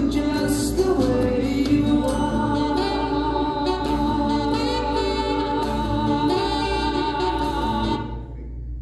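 A song sung over instrumental backing, ending on a long held note that stops about eight seconds in.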